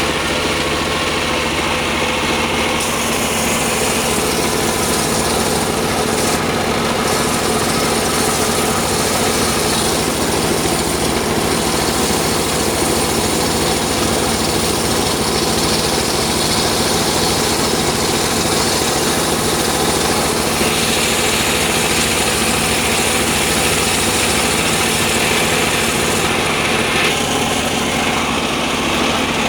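Circular saw machine running steadily while sawing sengon timber, its motor humming under a brighter hiss of the blade in the wood from about three seconds in until near the end.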